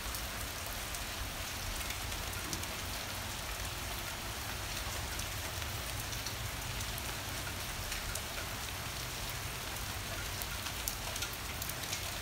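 Heavy rain pouring steadily onto a garden, lawn and patio, an even hiss of rain with scattered sharper drop hits.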